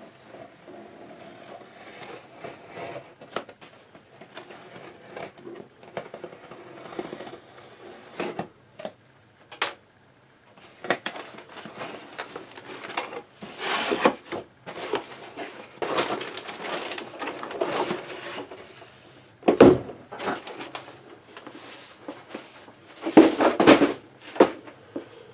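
A long cardboard shipping box being unpacked: packing tape slit and pulled off with a small blade, then cardboard flaps folded back with scraping and rustling. Handling noise grows louder in the second half, with a few sharp knocks as the boxed chassis is lifted out.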